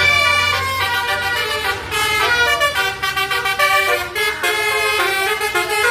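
Tour bus's Basuri multi-tone 'telolet' horn playing a melody: a run of loud held notes changing pitch in steps.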